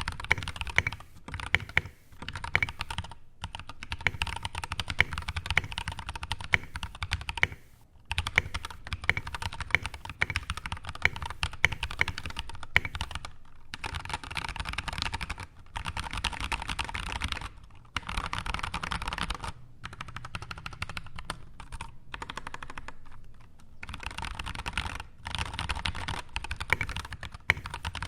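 Fast typing on a mechanical keyboard with JWK/JWICK Obsidian V2 tactile switches, unlubed, in an aluminium-plate board with foam and O-ring mods: rapid clacking keystrokes in runs a few seconds long, broken by brief pauses.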